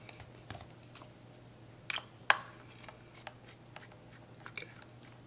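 Light clicks and taps of hand tools and plastic RC car parts handled on a tabletop, with two sharper knocks close together about two seconds in.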